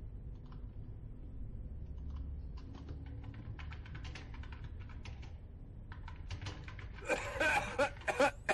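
Typing on a computer keyboard: irregular runs of light key clicks over a low steady hum. About seven seconds in, loud music starts with a regular beat.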